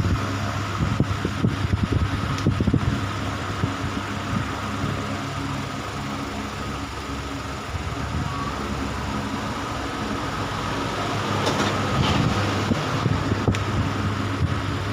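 Homemade electric fan driven by a washing-machine motor, running at high speed: a steady motor hum and whine over an irregular low rumble.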